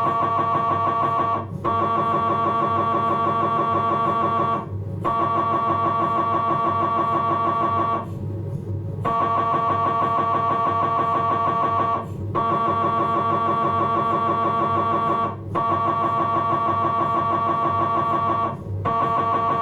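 Philips 1.5 T MRI scanner's gradient coils buzzing through a T1-weighted axial fat-suppressed abdominal sequence. The buzz is steady and high-pitched and comes in runs of about three seconds, broken by brief pauses, one of them about a second long near the middle.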